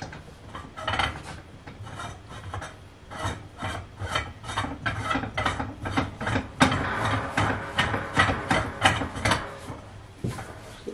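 Repeated rasping, ratchet-like clicks, about three a second and loudest past the middle, as a white wire closet shelf is fastened to the wall by hand.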